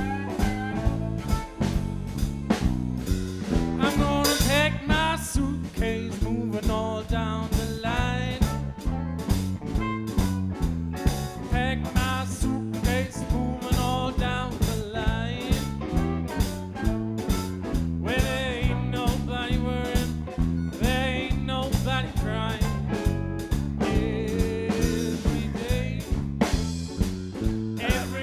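Live blues band playing: a harmonica solo with wavering, bent notes over a steady drum beat, a stepping bass line and electric guitar.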